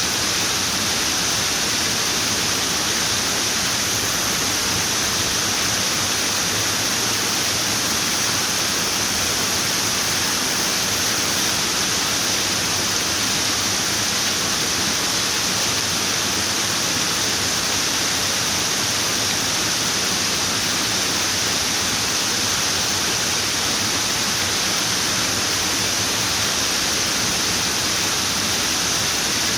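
Running water making a steady, even hiss, with no changes or separate splashes.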